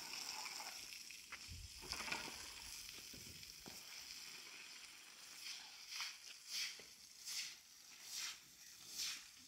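Water hissing from a garden hose onto wet paving stones, then a straw broom swishing across the wet tiles in regular strokes, about three every two seconds, from about halfway.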